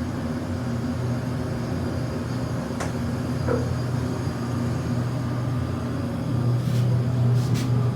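1973 Dover hydraulic elevator running, heard from inside the cab: a steady low hum with rumble, getting a little louder near the end, with a few light clicks.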